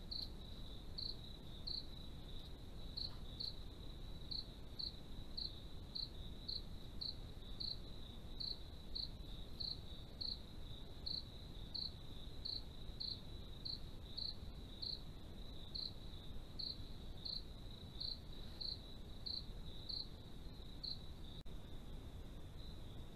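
Insects chirping: a steady high-pitched trill with regular brighter chirps about two a second, the chirps stopping near the end while the trill goes on.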